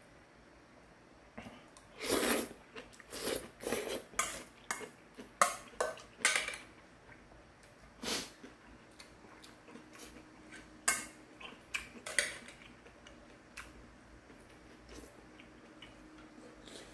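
A metal utensil clinking and scraping against a stainless steel bowl while noodles are eaten from it, in irregular strokes that come thickest in the first half.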